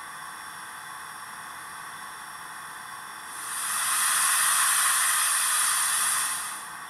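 ESU LokSound V5 micro sound decoder in a Roco DR class 93 steam locomotive model, playing standing-loco steam hiss through its small speaker. About three seconds in, a much louder burst of steam swells up, holds for about three seconds and dies away.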